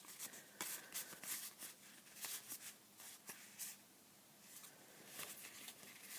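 Trading cards being handled and flicked through one by one, a run of soft, quick papery flicks and slides with a short lull about two thirds of the way in.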